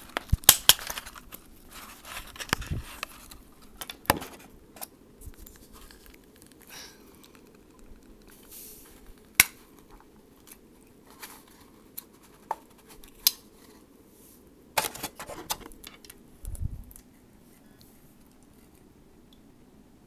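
A sardine tin being pulled open by its ring tab: scattered sharp metal clicks, clinks and scrapes with quiet gaps between, and a couple of low thumps about three-quarters of the way through.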